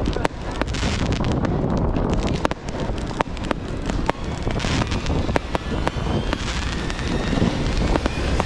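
Many fireworks going off at once: irregular bangs and crackles of rockets and aerial shells at various distances, with wind buffeting the microphone as a low rumble.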